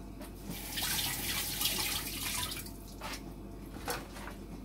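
Water running from a kitchen tap for about two and a half seconds, starting about half a second in and then shut off, followed by a brief clatter.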